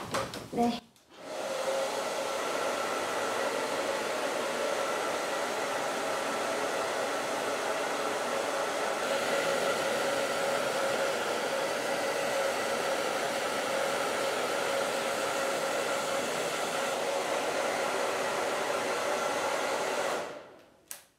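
Handheld hair dryer running steadily with a faint whine, switched on about a second in and switched off about a second before the end.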